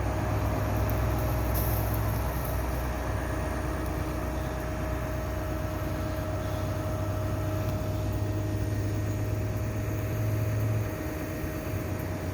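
Excavator's diesel engine idling steadily: a low, even hum with a steady tone above it, easing slightly near the end.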